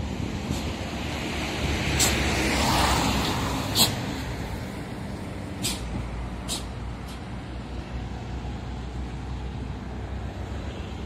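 Highway traffic: a coach bus and other vehicles passing, with a steady engine and tyre rumble that swells about two to three seconds in as they go by. Several short, sharp clicks come through between about two and seven seconds in.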